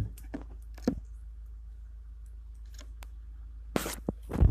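Handling noise from a phone held close to the face: scattered light clicks and rubs over a low steady hum, with a short rustle and a louder low thump near the end.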